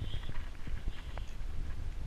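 Irregular footsteps on a gravel lane, with a low steady rumble of wind on the microphone.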